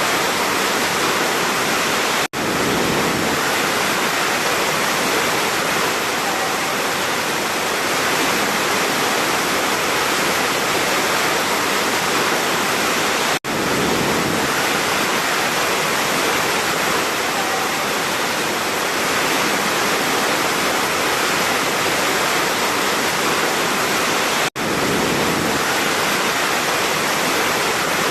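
Large waterfall pouring: a loud, steady rush of water. The sound drops out for an instant three times, about eleven seconds apart.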